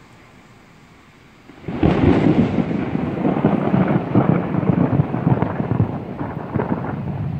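Rolling thunder: a loud peal breaks suddenly about a second and a half in and rumbles on with a rough, crackling texture, easing off a little near the end.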